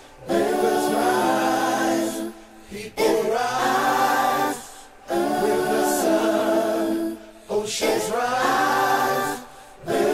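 A cappella singing: four long sung phrases of about two seconds each, with held notes and short breaks between them.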